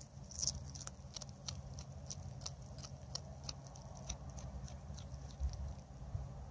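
A grey cat chewing on a freshly caught rabbit, short sharp clicks of its bites about three a second over a low rumble.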